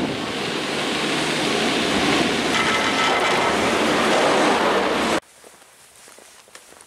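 Steady rushing noise of a cable-car gondola rolling into its upper station, with wind on the microphone and a faint high whine in the middle. It cuts off abruptly about five seconds in, leaving faint footsteps on a brick path.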